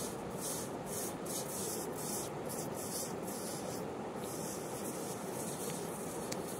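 Hands scraping and scooping damp sand, a steady rasping noise.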